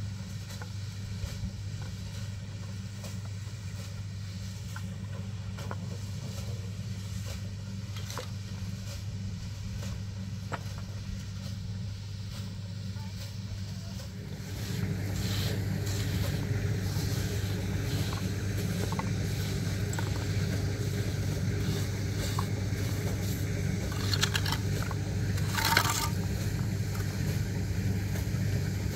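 A small engine runs steadily throughout, its drone louder from about halfway. In the second half, concrete blocks and mortar scrape and knock as they are laid, with one sharp knock near the end.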